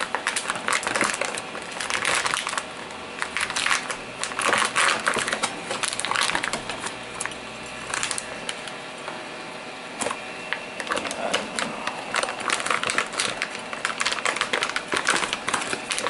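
Clear plastic packaging bag crinkling and rustling as it is worked and pulled out from the top of a 3D printer, with irregular crackles throughout.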